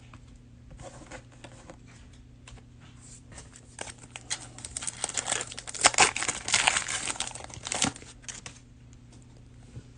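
Cellophane wrapper of a trading-card cello pack crinkling as it is torn open, the crackle thickest in the middle of the stretch.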